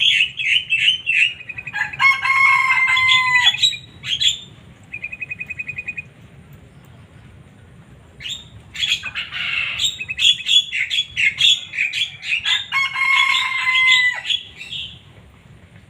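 Songbird masteran recording: quick varied chirps, whistled notes and trills. An even buzzy rattle comes about five seconds in, then a pause of about two seconds, then more rapid mixed song.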